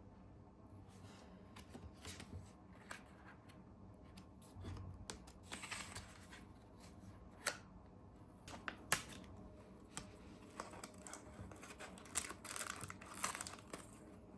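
Close-up handling sounds: irregular small clicks and taps mixed with brief rustling, busiest near the end.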